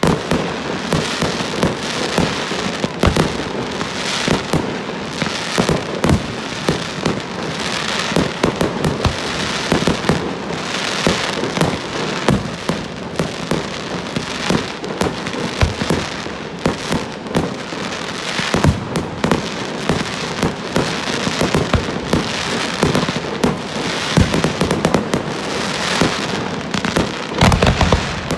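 Fireworks going off in a dense, continuous barrage: rapid overlapping bangs and crackling with no pause, with louder clusters every second or two.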